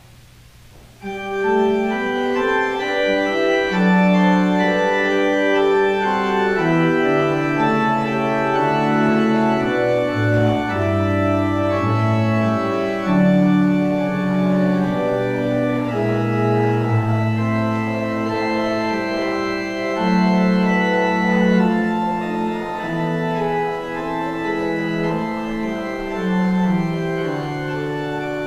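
Organ playing slow, sustained chords of a hymn-like piece, coming in suddenly about a second in; it is the postlude that follows the dismissal.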